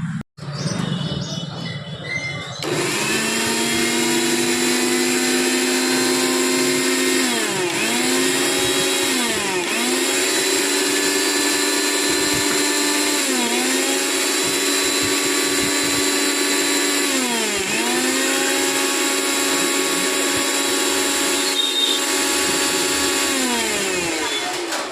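Kitchen mixer grinder's motor running in bursts. It spins up with a rising whine about two and a half seconds in, briefly slows and picks up again four times, and winds down near the end.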